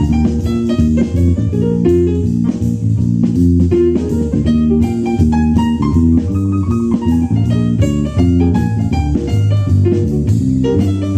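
Live small jazz band of drums, violin, bass and piano playing a swing blues, with bass notes moving under an evenly pulsing cymbal beat and a melodic line above.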